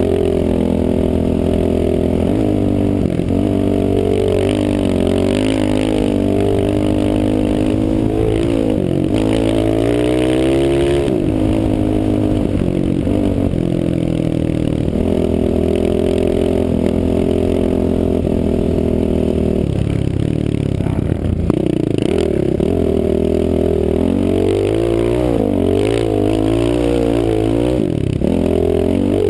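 Off-road vehicle engine running under load across soft sand, heard from the rider's helmet, its revs rising and falling several times, with a drop around twenty seconds in and a stretch of quick rev changes near the end.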